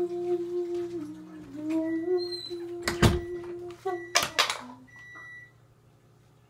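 A person humming long held notes that slide slowly from one pitch to the next, with two or three sharp knocks about halfway through; the humming stops about a second before the end.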